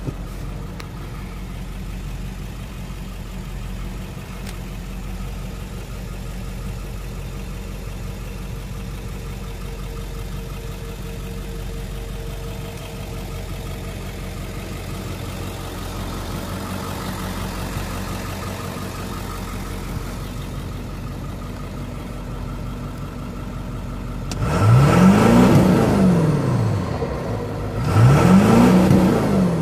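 2002 Ford F-350's 7.3L Powerstroke V8 turbo diesel idling steadily, heard from inside the cab. Near the end it is revved twice in park, the pitch rising and falling each time.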